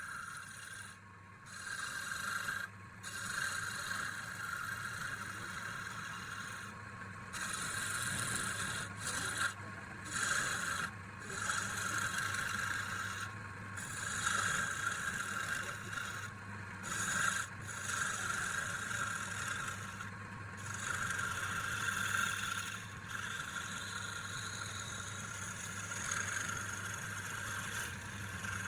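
Wood being rubbed or rasped, in long scratchy passes broken by short pauses every second or few.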